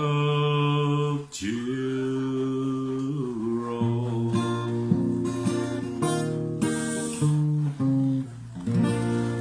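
A man sings a long held note over an acoustic guitar, then the guitar carries on alone with picked notes and strums to close the song.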